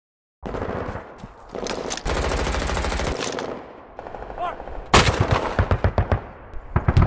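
Machine-gun fire: a rapid burst about two seconds in, then louder, sharper bursts of rapid shots from about five seconds in.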